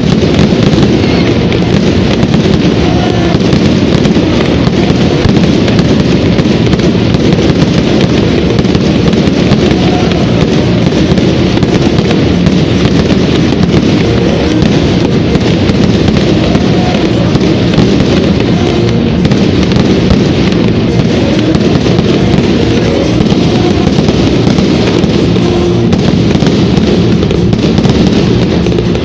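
Continuous fireworks barrage, a dense run of booms and crackles that goes on without a break, with music playing loudly at the same time.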